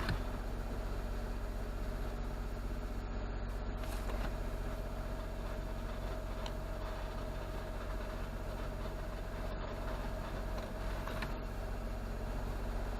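Autozam AZ-1's small three-cylinder engine running steadily, with the rattle from around the gearbox that the owner hears mostly from cold and that stops when the clutch is pressed; he suspects the gearbox needs an overhaul.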